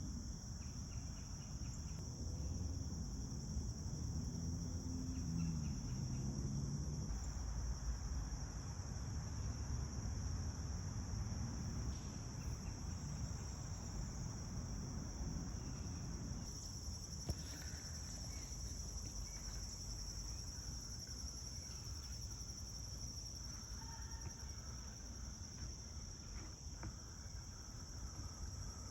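A steady, high-pitched chorus of insects over a low rumble of background noise, with a few faint bird chirps about two-thirds of the way through and near the end.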